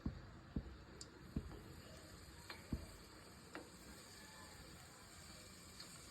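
Four soft, dull knocks, spacing out over the first three seconds, then two faint sharp clicks.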